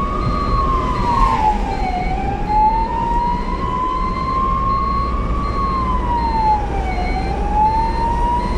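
Ambulance siren wailing: one tone rising slowly and then dropping quickly, repeating about every five seconds, over a steady low engine and road rumble. A faint high beep pulses about twice a second alongside it.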